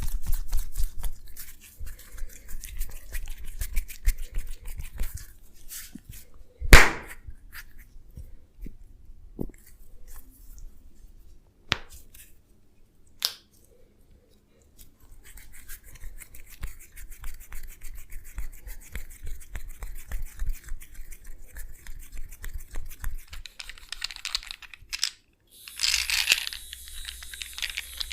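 Close-up massage sounds: fingers rubbing and scratching with a crackly texture, broken by one loud sharp crack about seven seconds in and two smaller clicks a few seconds later.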